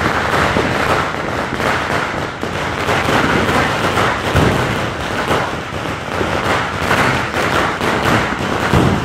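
Many fireworks and firecrackers going off at once in a dense, unbroken crackle of pops and bangs, with a couple of heavier booms.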